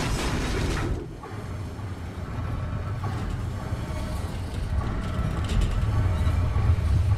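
Film soundtrack: a loud rushing noise cuts off about a second in, giving way to a deep, low rumble that slowly grows louder.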